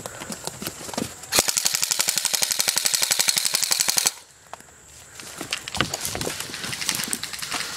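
Airsoft rifle firing one sustained full-auto burst: a rapid, even stream of sharp cracks lasting nearly three seconds that cuts off suddenly. Scattered clicks and rustling come before and after it.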